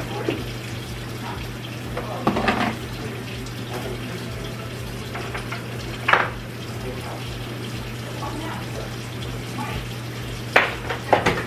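Kitchen items being handled on a counter: a few separate knocks and clunks, the loudest near the end, over a steady low hum.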